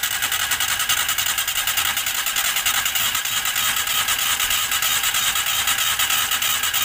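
Maruti Alto 800's three-cylinder engine being cranked on the starter with only cylinder 2 connected, giving a steady, rapid rhythmic churn without catching: cylinder 2 is not firing, which the mechanic thinks may come from faulty valves in the head.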